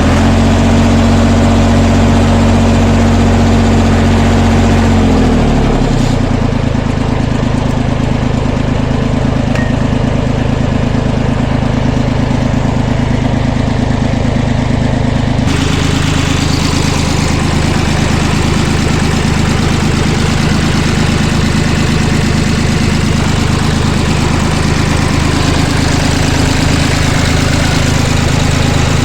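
International 484 tractor engine running just after starting, its speed dropping to a steady idle about five seconds in.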